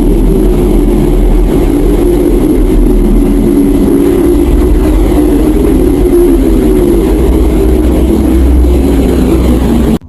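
Steady, dense low droning rumble with a slowly wavering hum in it, presented as the sound of planet Earth: a space sonification rather than a recorded acoustic sound. It cuts off abruptly at the end.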